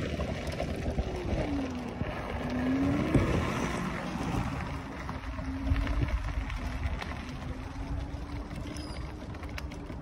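Electric mobility scooter running along a road: a motor whine that dips and rises in pitch over the first few seconds, then holds nearly steady, over a low rumble from the wheels and wind on the microphone.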